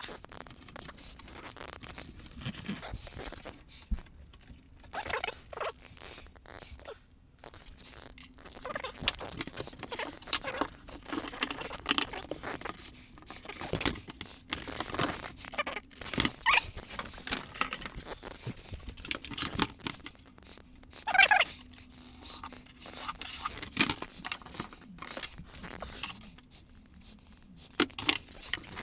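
Irregular scraping, rustling and crunching of cardboard and tape being handled and worked, with scattered small knocks and quieter gaps between bursts.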